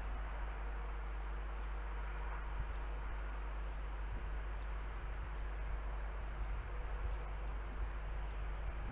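Steady outdoor background noise: a constant low hum under an even hiss, with faint, very short high peeps scattered through it.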